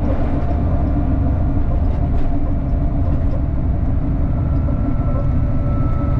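Steady low rumble of a moving long-distance bus, engine and road noise heard from inside. A faint thin whine joins about two-thirds of the way through.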